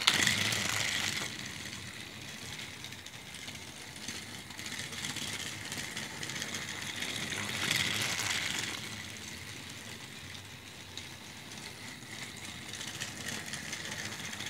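Motorized toy Thomas train running on plastic track: the steady whir of its small motor and gears. It grows louder about eight seconds in, then falls back.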